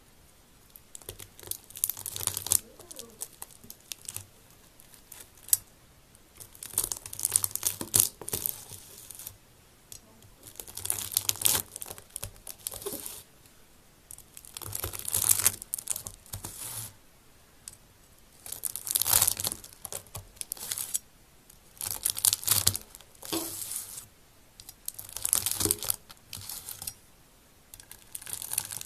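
Slime mixed with Orbeez water beads being squeezed and worked by hand, giving repeated bursts of crackling and popping every three to four seconds.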